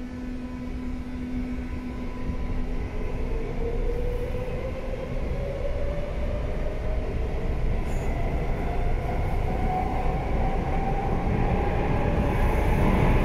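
CAF 5000-series metro car pulling out of a station: the traction motor whine climbs steadily in pitch as the train gathers speed, over a growing rumble of the wheels on the rails.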